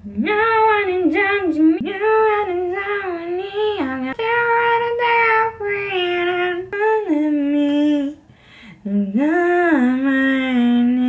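A woman singing a few phrases of a song alone, without accompaniment, holding and bending the notes. She breaks off briefly a little after eight seconds, then ends on a long, low held note.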